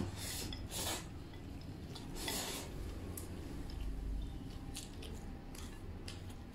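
Chopsticks clicking and scraping against a porcelain bowl as food is shovelled from it into the mouth, with a few short eating noises in the first few seconds.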